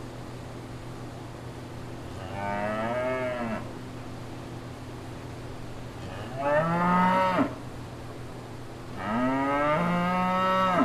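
Cattle mooing: three long moos a few seconds apart, the last cut off abruptly, over a steady low hum.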